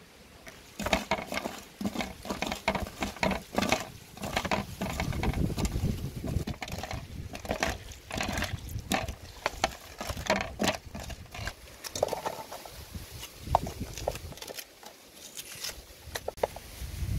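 Wet squelching and slapping of hands kneading seasoning into raw skinned frogs, a fast irregular run of small smacks. Near the end come a few sharp knocks as onion pieces are set in a metal pot.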